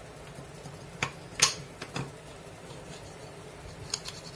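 Wooden parts knocking and clicking together as a wooden slider bar is handled and fitted into a wooden guide channel: four knocks between about one and two seconds in, the second the loudest, then two lighter clicks near the end.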